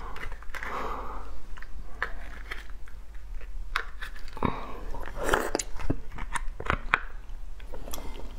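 Crab shell being picked at and broken apart by hand, giving a run of short crisp snaps and cracks, busiest a little past the middle, along with some chewing.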